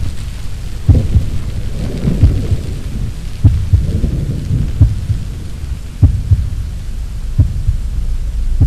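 Storm sound effect: a continuous low rumble of thunder under a steady rain hiss, with deep booms at an even pace of about one every second and a bit.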